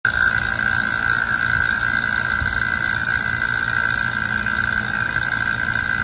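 Harbor Freight vacuum pump running steadily, a constant high tone over a low hum, while it pulls a deep vacuum on an empty HVAC system and the micron reading is still dropping.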